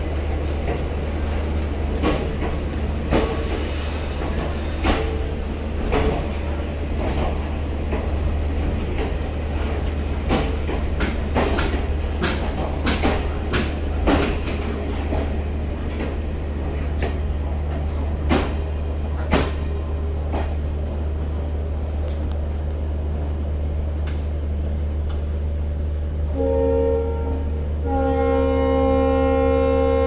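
Passenger coaches rolling past, their wheels clacking unevenly over rail joints above a steady low rumble. Near the end, the departing WDP4D diesel locomotive sounds its horn twice, a short blast and then a long, louder one.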